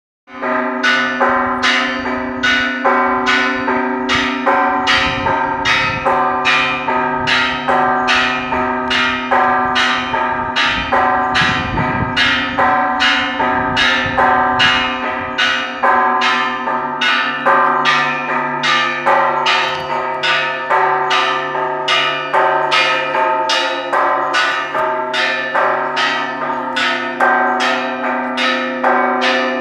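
Church bells ringing continuously, several bells of different pitch struck in a steady, quick rhythm of about one and a half strikes a second, with a low bell tone ringing on underneath.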